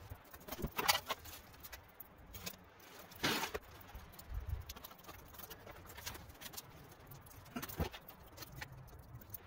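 Footsteps on gravel and scattered clicks and knocks of a hose being coupled to an electric pressure washer and gear being handled, with a few louder knocks about a second in, at about three seconds and near the end.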